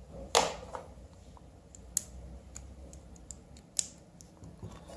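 A few sharp clicks and light knocks from a touch lamp's plastic bulb holder and metal base being handled. The loudest comes about half a second in, and others come near two and four seconds.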